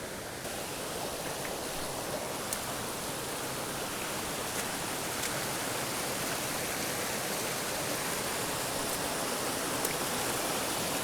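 Steady rushing of a mountain creek's water, with a few faint ticks over it.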